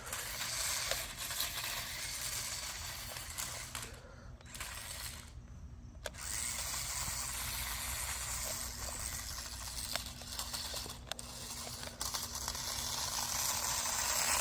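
Toy tracked RC stunt car driving, its small electric motors, plastic gears and tracks making a steady mechanical rattle with small clicks. It drops out twice, briefly, a little after the middle.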